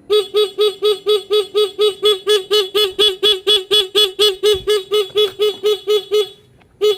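Motorcycle horn switched on and off by a turn-signal flasher, beeping rapidly at about four beeps a second. It breaks off briefly near the end, then starts beeping again.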